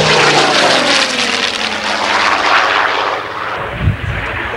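Supermarine Spitfire's piston engine and propeller passing overhead, its pitch falling as it goes by and the sound easing off after about three seconds. A brief low thump near the end.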